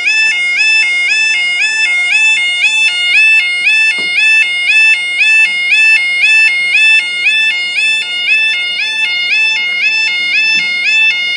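Level crossing yodel alarm sounding loudly: a steady, rapidly alternating two-tone warble. A single click about four seconds in.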